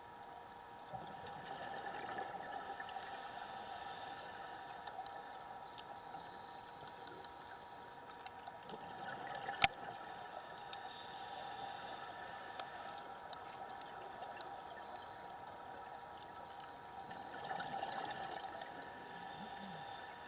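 A scuba diver's regulator heard underwater: a breath about every seven or eight seconds, each an intake hiss followed by a stream of exhaled bubbles. A steady faint hum runs underneath, and there is one sharp click about halfway through.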